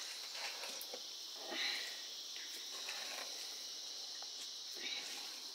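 A steady high-pitched insect drone, with soft squishes and dabs of a hand kneading flour dough mixed with milk in an aluminium pot. A louder touch comes about a second and a half in and again near the end.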